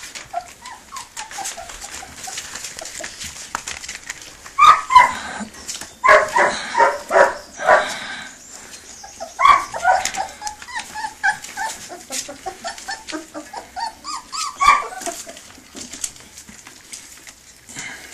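22-day-old puppies whining and yipping in short high calls while feeding from a metal bowl. The loudest clusters come about five seconds in, from six to eight seconds, around ten seconds and near fifteen seconds, with small clicks from their eating in between.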